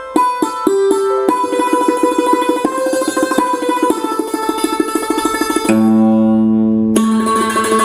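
Yamaha PSR-SX700 arranger keyboard played with a plucked-string voice: a melody in fast repeated, mandolin-like notes, a held chord near the end, then the plucked notes pick up again.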